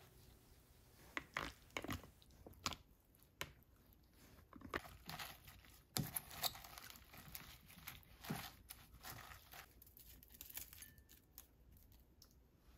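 Wooden chopsticks tossing lettuce and kimchi in a glass bowl: quiet, crisp rustling of leaves with irregular light clicks and taps.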